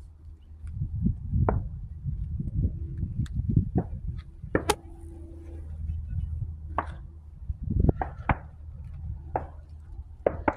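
Wind buffeting a handheld phone's microphone as a steady low rumble, with scattered sharp clicks and knocks from the phone being handled while it pans.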